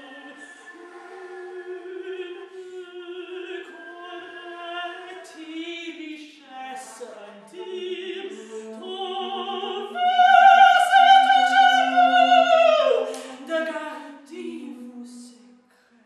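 A mezzo-soprano and a flute performing together in a contemporary classical art song, the lines wavering with vibrato. About ten seconds in, a loud high note is held for some three seconds and then slides down. The music breaks off shortly before the end.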